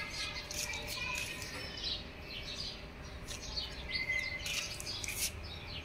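Birds chirping: many short, high chirps and a few brief whistles, overlapping.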